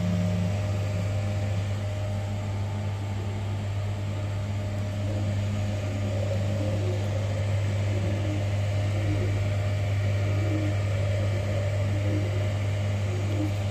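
FDM 3D printer running mid-print: a steady low hum from its fans, with the stepper motors whirring in short, changing tones as the print head moves.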